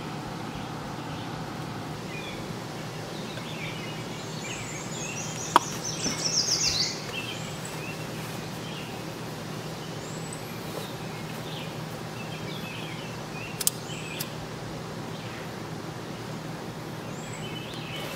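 Songbirds chirping in the woods, one giving a fast, falling trill about six seconds in, over a steady low hum. A couple of sharp clicks come about a third of the way in and again past the middle.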